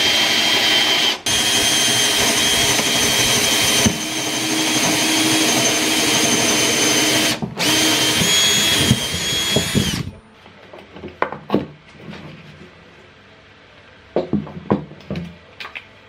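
Handheld power drill boring through stacked pallet-wood pieces, the motor whining steadily, with two brief stops, and cutting off about ten seconds in. After that come a few light knocks and clicks.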